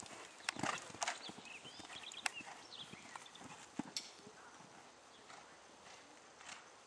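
Hoofbeats of a horse cantering on a sand riding arena, with a few sharp knocks in the first four seconds.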